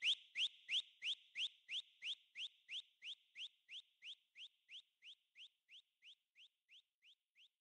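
Electronic chirp effect from a DJ remix: a short rising whistle-like chirp repeating about three times a second, like an echo tail, and fading away to almost nothing.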